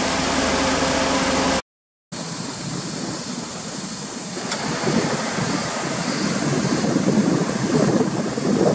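Suzuki Alto Works' 660 cc turbocharged three-cylinder engine idling steadily with the bonnet open. After a brief cut to silence about a second and a half in, gusty wind buffets the microphone, with the idle still faintly under it.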